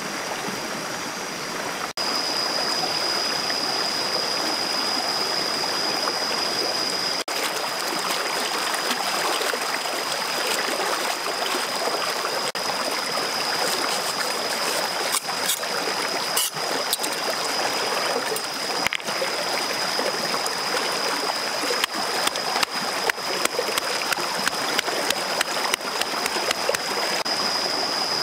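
Shallow stream rushing over rocks, with a steady high-pitched whine above it. From about halfway through, sharp knife chops and taps on a stone slab.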